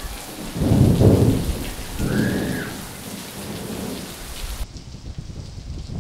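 Heavy rain pouring steadily in a thunderstorm, with a loud rumble of thunder about a second in and a weaker one soon after. Near the end the rain's hiss cuts off abruptly, leaving a quieter, crackling background.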